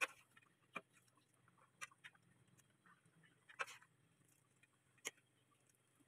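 Near silence broken by a handful of faint, sharp clicks and light knocks, about one a second, from a metal ladle touching the wok and bowl as soup is ladled out.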